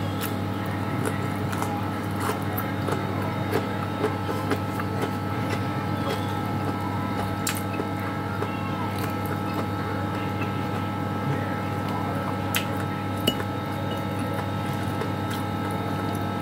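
Small wet clicks and squishes of someone chewing and handling boiled string beans and fried fish by hand, over a steady hum from a kitchen appliance.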